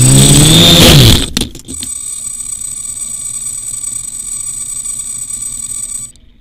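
DJI F450 quadcopter's motors and propellers running loud and rising in pitch, then a clattering tumble as the drone flips over into the grass about a second in. A steady high-pitched electronic whine from the upturned quadcopter follows and cuts off suddenly near the end.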